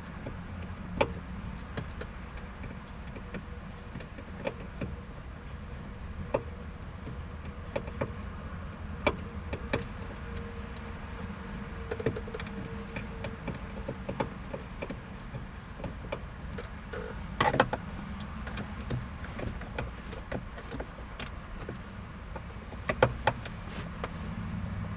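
Scattered sharp clicks and taps of a hand tool working fasteners loose in the plastic steering-column cover, with short clusters of rattling knocks about 17 and 23 seconds in, over a steady low hum.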